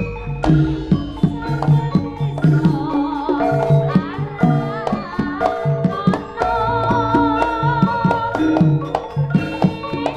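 Live Javanese jaranan ensemble music: hand-drum strokes and struck metal percussion in a steady rhythm, joined about two and a half seconds in by a wavering melodic line.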